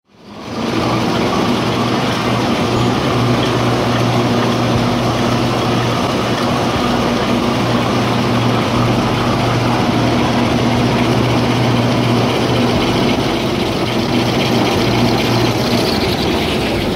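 Kitchen-towel colour-glue lamination rewinding and perforating machine running at production speed: a steady mechanical hum with a low drone under a dense hiss of rollers and paper web.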